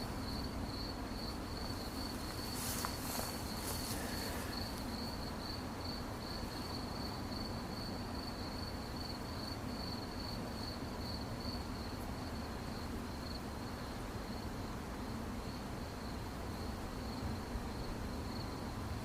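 Crickets chirping in a steady, rapidly pulsing high trill on one pitch, over a low background hum. A brief soft hiss comes through about three seconds in.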